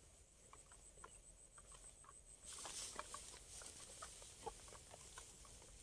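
Faint rustling of dry grass and vegetation with scattered light clicks, as a rat trap is handled and covered over. A high, evenly pulsing insect trill runs through the first half.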